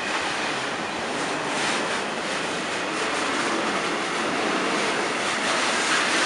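Container freight wagons rolling through on a passing freight train: a steady rush of steel wheels on rail, with faint repeated clicks.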